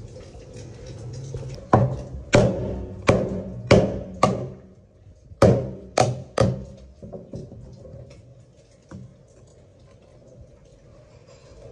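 Eight sharp knocks of a tool striking something hard, as in chopping or cracking during seafood preparation: five in quick succession, then three more after a short pause.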